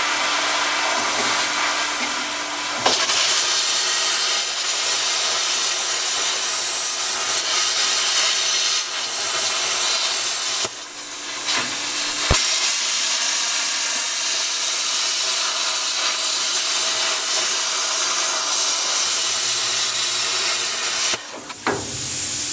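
Plasma cutter hissing steadily as it cuts through the dishwasher's sheet-metal cabinet, stopping briefly about halfway through and again just before the end, then starting back up.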